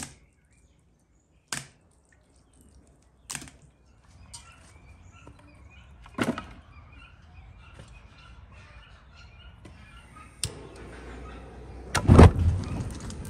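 Split firewood knocking a few times as the logs are handled and set down, with birds chirping faintly. Near the end a wood fire burning in a brick hearth gives the loudest sound, a short burst over a low rush.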